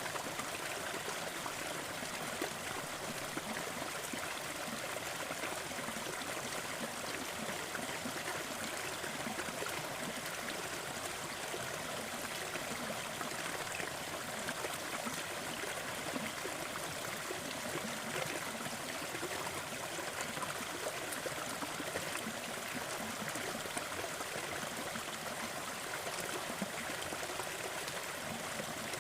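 Small waterfall splashing and trickling steadily over rocks.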